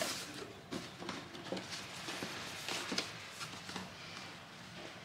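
Cardboard box and printed card insert rustling, with a few light knocks, as a folded fabric garment is lifted out during unpacking.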